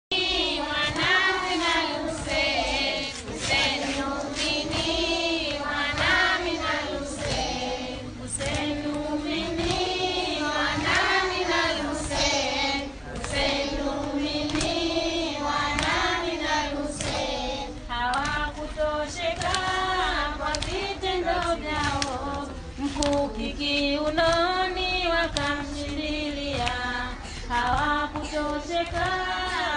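A large group of young children chanting a noha, a Shia mourning elegy, together in repeated rising and falling phrases. Scattered sharp slaps of hands on chests (matam) sound through the chant.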